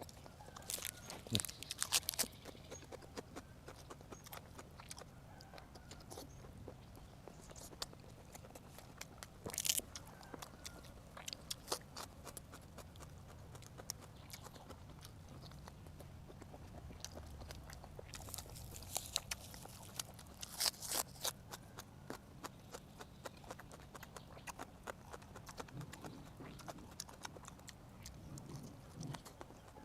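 Close-up eating sounds of a person chewing steamed roe-filled squid, with wet lip smacks and many short sharp clicks, in a few dense clusters near the start, about a third of the way in, and around two-thirds of the way through.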